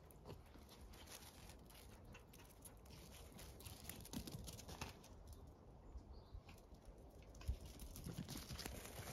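Near-silent outdoor quiet with faint, scattered taps and scuffs, and one low thump about seven and a half seconds in.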